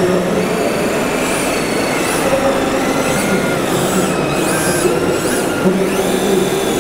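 Radio-controlled Volvo L220E wheel loader model driving over dirt: its electric drive and hydraulic pump motors whine, rising and falling in pitch as it works, over a steady background din.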